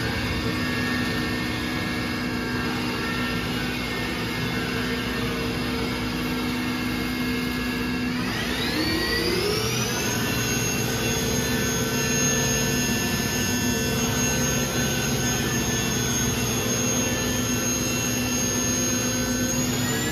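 Sharp SV-4328SX CNC vertical machining center's spindle running with no cut: a steady whine of several tones that climbs in pitch about eight seconds in as the spindle speeds up, holds at the higher speed, then starts climbing again near the end.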